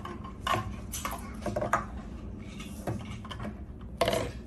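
Plastic toy food pieces and a toy cup knocking and clattering on a tabletop: scattered light knocks, with a louder one near the end.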